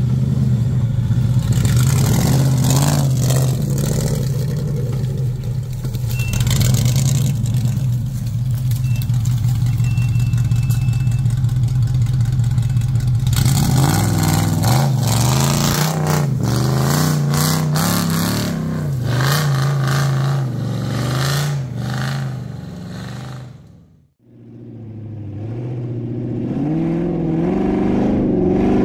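An off-road 4x4's engine running at fairly steady revs, then revving up and down from about halfway, with clattering knocks over rough ground. The sound dips away near the end and comes back.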